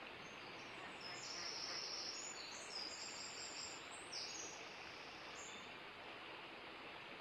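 Faint, steady outdoor hiss of wind over open water, with a run of high, thin bird chirps from about a second in to about five and a half seconds.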